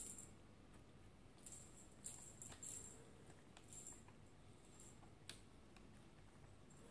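Faint, irregular scratching of cat claws on a scratch board: short raspy strokes with pauses between them and a sharp click a little past the middle.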